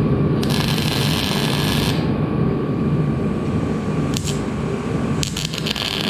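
Welding nuts onto a steel bracket: crackling weld runs with a pause between them, from about half a second to two seconds in and again from about five seconds in, over a steady low hum.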